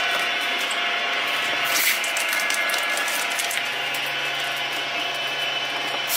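Electric twin-shaft shredder running steadily with a motor whine and light clicks from its cutters, with a brief burst of hiss about two seconds in as it tears open a small rubber soccer ball.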